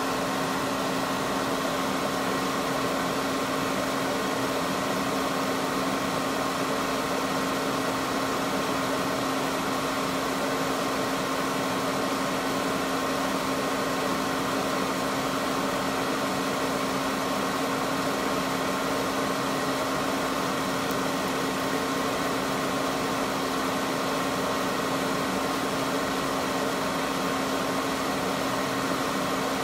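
Steady machine hum, like a fan running, with a constant low tone and a fainter higher tone over an even hiss.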